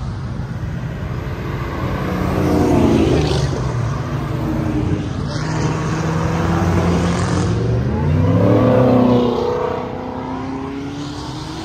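Cars and trucks driving past one after another with engines revving and accelerating, loudest about three seconds in and again around eight to nine seconds in.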